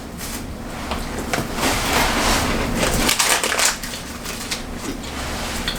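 Crisp crunching of a vanilla wafer being bitten and chewed, in irregular bursts.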